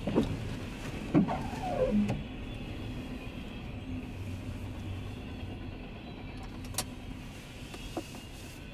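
A steady low engine hum, with a few knocks and a short falling squeak in the first two seconds and a sharp click near the end.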